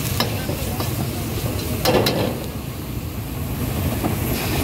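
Street ambience dominated by a steady low traffic rumble from passing road vehicles, with a few sharp clicks or knocks, the loudest about two seconds in.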